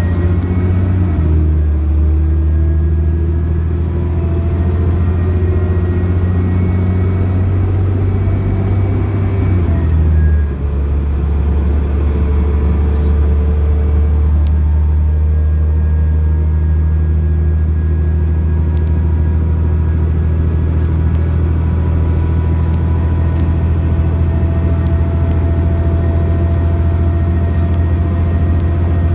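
Cummins ISC inline-six diesel of a New Flyer D40LF transit bus, heard from inside the bus as it pulls under way, with a low drone slowly rising in pitch. About ten seconds in the Allison automatic transmission upshifts: the engine note drops and dips briefly, then it runs on at a steady pitch.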